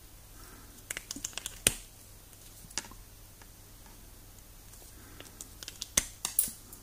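Hand wire strippers clicking and snipping as they bite into a thin insulated wire and pull the insulation off. The sharp clicks come in a cluster about a second in, once more near the middle, and in another cluster near the end.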